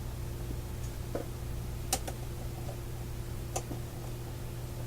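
Steady low hum with two sharp clicks, about two seconds and three and a half seconds in.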